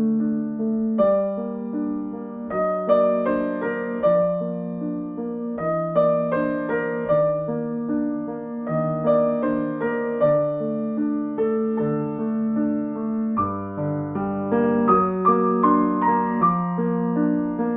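Slow, gentle solo piano music: a soft melody of single notes over sustained chords.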